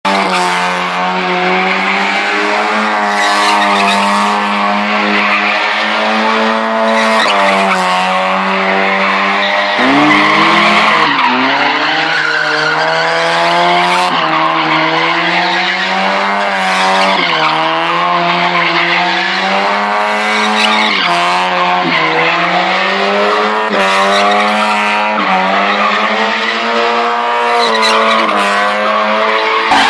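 Mazda MX-5's four-cylinder engine revving hard while drifting, tyres squealing and scrubbing. The engine pitch mostly holds steady, then dips and climbs back a few times, most deeply about ten seconds in.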